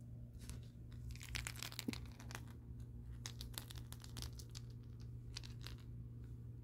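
A cat purring as a low, steady rumble, under crackling, rustling handling noise close to the microphone. The rustling is densest between about one and two and a half seconds in.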